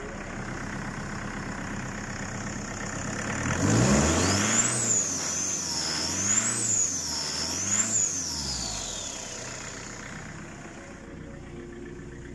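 Mitsubishi L200 DiD four-cylinder turbo-diesel idling, then revved three times in quick succession, with a high turbo whistle rising and falling with each blip, before it settles back to idle. The turbo is a freshly fitted Borg Warner unit off a Mercedes OM904 truck engine.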